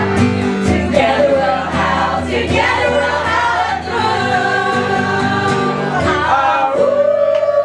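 A woman singing live with a strummed acoustic guitar, holding one long note near the end.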